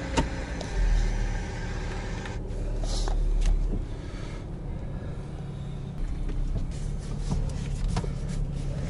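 Car moving off, heard from inside the cabin: a couple of clicks right at the start, then a low rumble for about three seconds, settling into a steady engine hum.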